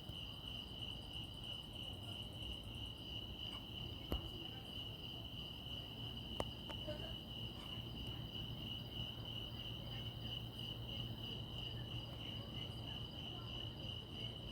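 Crickets chirping in a steady, continuous high trill, over a low steady hum, with two brief clicks about four and six seconds in.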